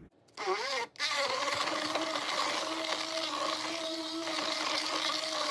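Stick blender switching on about a second in and running at a steady pitch, its blade churning melted soap-making oils in a plastic bowl.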